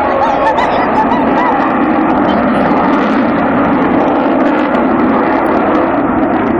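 Eurofighter Typhoon's two Eurojet EJ200 turbofans: loud, steady jet engine noise from the fighter in its display. A few short warbling chirps rise and fall over it in the first second and a half.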